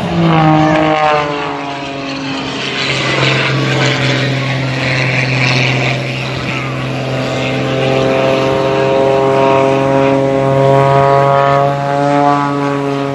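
Piston engine and propeller of a single-engine aerobatic plane droning overhead during a smoke-trailing climb. The pitch drops in the first second, then holds steady, edging up a little later on.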